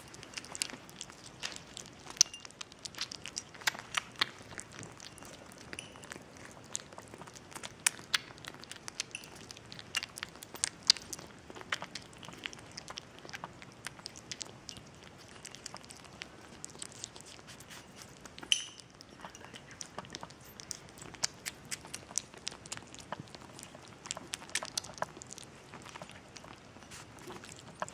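Young kitten eating wet cat food from a porcelain saucer: a continuous, irregular run of small wet clicks and smacks from chewing and licking.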